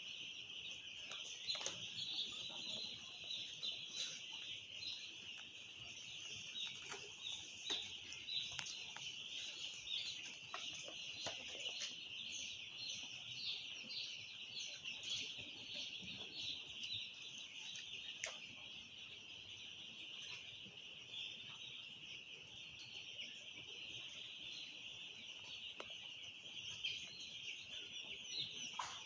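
A flock of young chicks peeping, a dense unbroken chorus of high chirps with single louder peeps standing out now and then.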